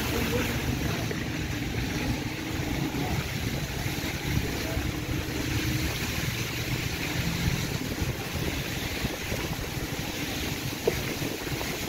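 Vehicle engine running steadily, with tyre and road noise from driving slowly over a wet, mud-covered street. A single sharp click comes near the end.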